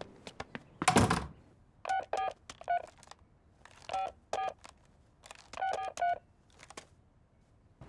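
Push-button telephone being dialled: about ten short keypad beeps in uneven groups, after a brief swish about a second in.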